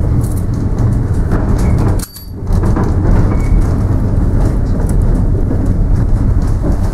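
Tram running along its track, a steady low rumble of wheels on rails and the rattling car body. A sudden brief drop in level comes about two seconds in.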